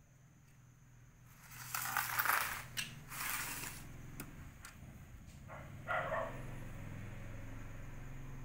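Laptop RAM module being pushed into its memory slot: rustling and scraping of hands on the open laptop's underside for a couple of seconds, with several sharp clicks, then a shorter scrape about six seconds in. A faint steady low hum sits underneath.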